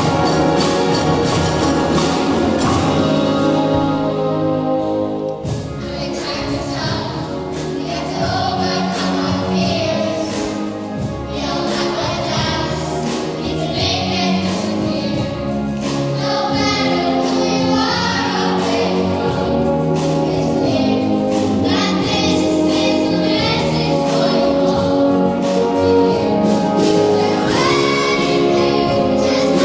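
A large children's and youth choir singing with a full symphony orchestra and hand drums. The orchestra plays alone at first, and the voices come in about five seconds in.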